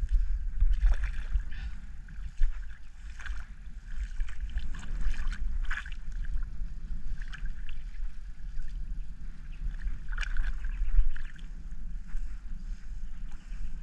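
Wind rumbling on the microphone over shallow water lapping and splashing against shoreline rocks, in short irregular splashes.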